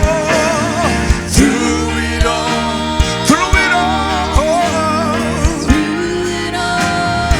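Live gospel worship music: a singer holds long notes with vibrato over a band with a steady drum beat.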